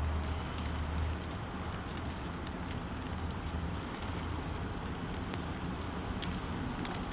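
Steady outdoor hiss in falling wet snow, with faint scattered ticks and a low rumble that fades about a second in.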